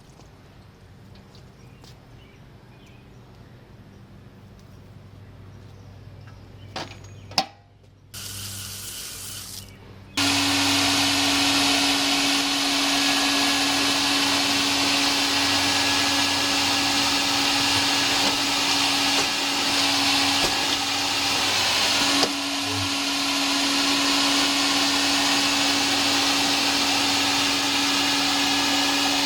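Nobles SpeeDry industrial vacuum floor cleaner switched on: a click about seven seconds in, then about ten seconds in its suction motor comes up to a loud, steady rushing run with a steady hum.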